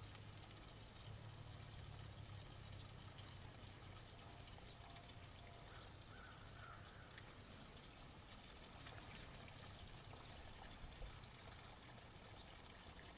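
Near silence: faint steady outdoor background noise with a low hum.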